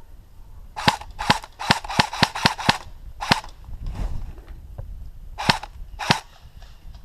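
Airsoft rifle firing single shots close by: a quick string of about seven shots, then three more spaced a second or two apart.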